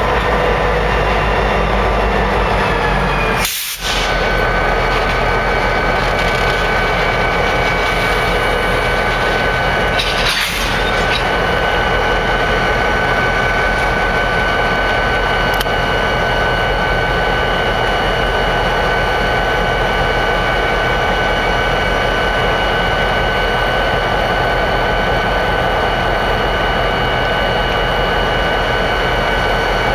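EMD GP38-2 diesel-electric locomotives, each with a 16-cylinder two-stroke engine, running steadily close by, with a constant hum and hiss and a steady whine on top. The sound briefly dips out twice, once early and once about a third of the way in.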